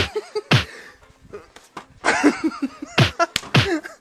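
Dubbed-in punch sound effects: about four hard hits, each with a low thud that drops in pitch, two near the start and two about three seconds in.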